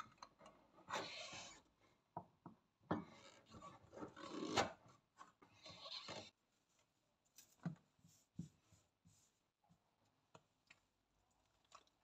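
Metal twist-off lid being screwed onto a glass pickle jar: the lid's threads scrape and rasp against the jar's glass thread in three twisting bursts over the first six seconds, followed by a few light clicks and knocks.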